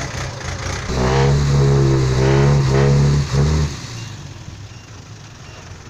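Heavy diesel vehicle engine revving hard for about three seconds at a steady high pitch, with two brief dips, then dropping back to a low rumble. It is a truck or tractor straining to pull free of deep mud.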